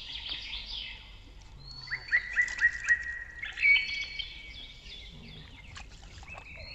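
Birds singing and chirping, with a quick run of short, repeated whistled notes about two seconds in and further chirps and whistles through the rest.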